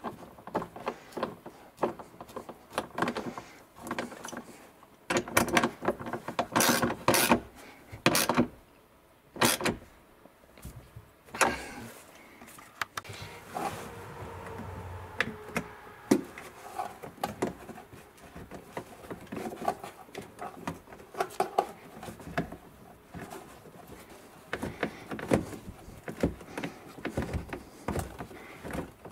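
Quarter-inch drive ratchet clicking in short runs as the heater assembly's nuts and bolts are tightened, mixed with scattered knocks and clatter of the socket and parts being handled.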